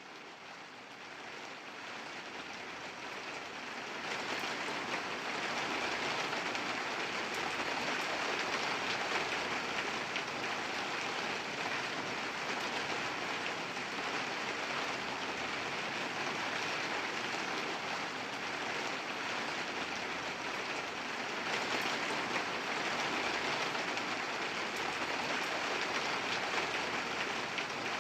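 Steady rain falling, a dense even hiss with faint scattered drop ticks, fading in over the first few seconds and then holding steady.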